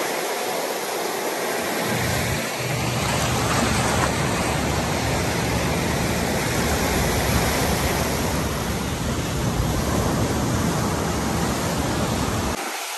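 Ocean surf breaking and washing up the sand: a steady rushing hiss, with a low rumble coming in about two seconds in.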